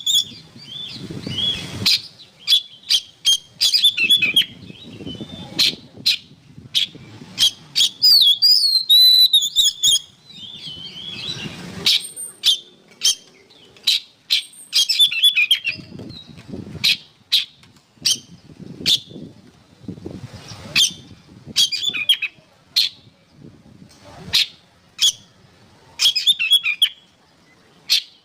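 Oriental magpie-robin (kacer) singing: varied phrases of sharp clicking notes and loud whistles, broken by short pauses.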